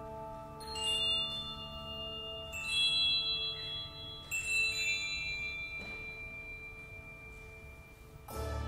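Handbell choir ringing: a held chord rings beneath while three clusters of high bells are struck, about every two seconds, each left to ring and fade. A loud new chord comes in near the end.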